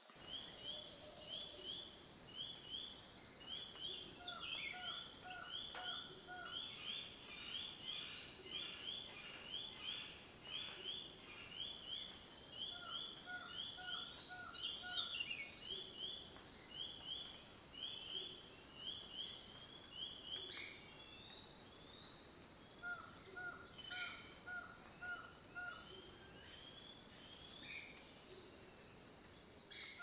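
Insects keep up a steady high-pitched drone while birds call: a run of short repeated chirps about two a second, and three times a quick series of about five lower notes.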